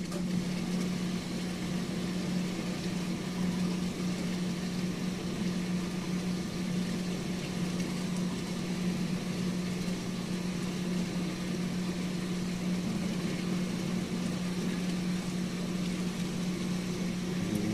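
Reef aquarium pump and filtration equipment humming steadily, with one low electrical tone over an even hiss of moving water and air.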